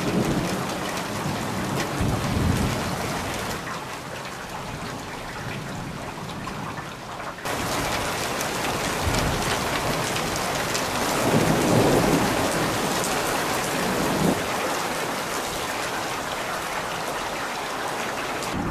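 Heavy rain falling steadily during a thunderstorm, growing louder about a third of the way in. Thunder rumbles low twice, once about two seconds in and again more strongly around the middle.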